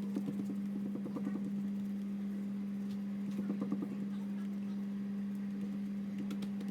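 A steady low hum, with light handling noises, faint quick clicks and rattles, about a second in and again around three and a half seconds in.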